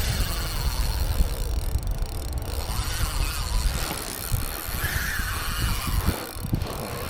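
Wind buffeting the microphone: an uneven low rumble with no steady tone.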